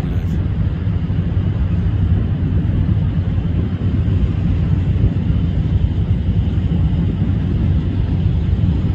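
Tracked armoured vehicles' engines running, a steady low rumble.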